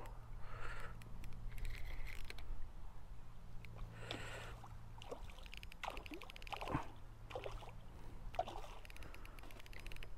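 A hooked carp splashing and thrashing at the surface near the landing net, in irregular bursts, while a spinning reel is wound with runs of fast ticking.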